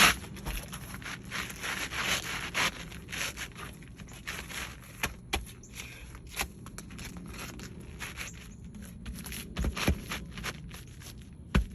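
Irregular scuffing and gritty scraping on asphalt roof shingles, like shoes stepping and shuffling over the granular surface, with a few sharper knocks near the end.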